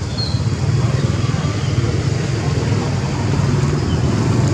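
A steady low rumble, even in level throughout, with a brief faint high chirp about a quarter of a second in.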